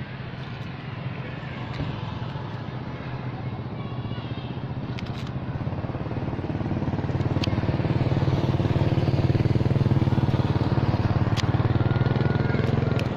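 A motor vehicle's engine running steadily, growing louder about halfway through and dropping off at the very end, with a few faint clicks over it.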